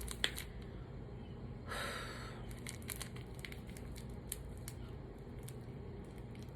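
Faint crinkling and tearing of a candy wrapper being opened by hand: scattered small clicks, with a short, louder rustle about two seconds in.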